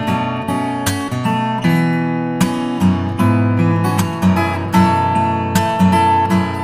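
Background music: acoustic guitar, plucked and strummed in a steady flow of notes.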